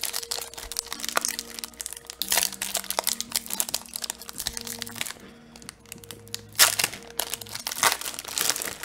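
Magic: The Gathering cards being handled and flicked through by hand, giving a run of crackles and sharp snaps of card stock, with a few louder snaps. Faint background music of long held notes plays underneath.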